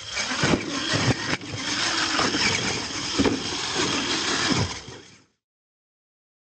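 Radio-controlled monster truck's motor whining and revving up and down, with several sharp knocks as the truck lands and tumbles. The sound cuts off suddenly about five seconds in.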